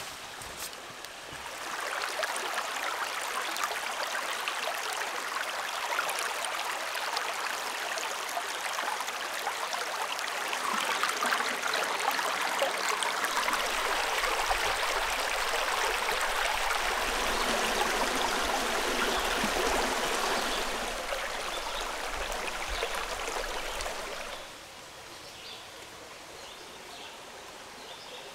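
Fast-flowing river water rushing steadily: a dense hiss that swells a little midway, then drops suddenly to a softer hiss about four seconds before the end.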